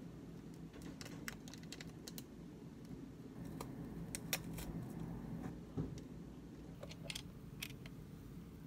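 Chocolate biscuit wrapper being handled, giving faint scattered clicks and crinkles in short irregular bursts.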